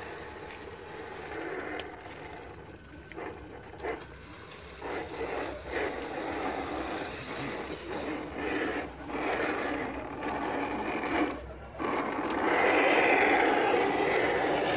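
Radio-controlled scale crawler trucks driving through muddy water: uneven mechanical whirring and scraping with short clicks, in patches as the trucks move. The noise is loudest from about twelve seconds in, as the second truck pushes into the water.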